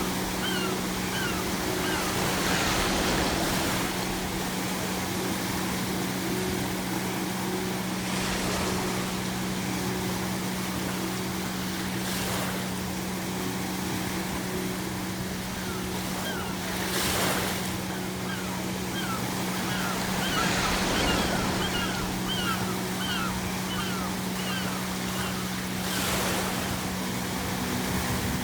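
Ocean waves breaking and washing in, a surge every four to five seconds. Seagulls call in runs of short cries near the start and again past the middle. A steady low hum runs underneath.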